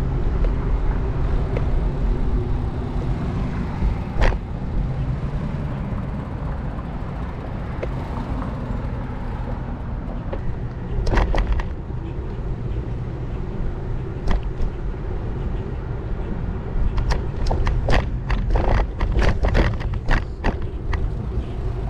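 Steady low rumble and rushing noise from riding a bicycle with a handlebar-mounted action camera, with a few sharp clicks and knocks: one about four seconds in, a couple near the middle, and a cluster near the end.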